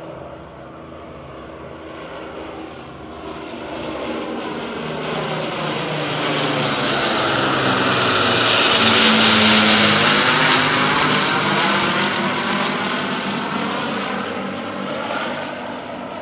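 Avro Lancaster bomber with two single-engine fighters flying over in formation: the drone of their piston engines, the Lancaster's four Rolls-Royce Merlin V12s among them, builds to a peak about halfway through as they pass overhead and then fades as they fly away.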